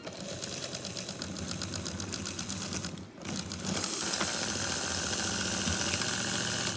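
LEGO train motor running on a test after being wired in, its gearing whirring with a fast rattle. It dips briefly about three seconds in, then runs louder and steadier until it cuts off suddenly near the end.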